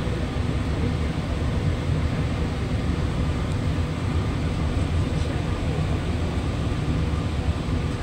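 Steady low rumble of an Alishan Forest Railway passenger train rolling slowly into a station, heard from inside the carriage.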